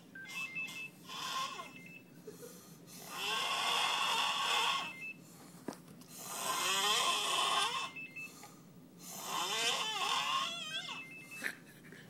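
A sleeping person snoring heavily: three long, loud snores about three seconds apart, each with a wavering buzz in the breath, after a shorter, softer one about a second in.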